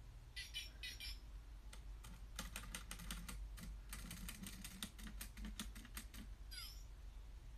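Micropet robot toy's small motor and gears running, a faint rapid clicking over a low pulsing hum as the toy turns itself around. Near the end comes one short falling squeak.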